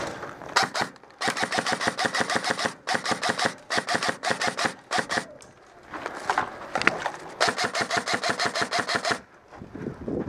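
Airsoft electric rifle firing on full auto: several bursts of rapid clicking shots, about a dozen a second, the longest near the end lasting almost two seconds.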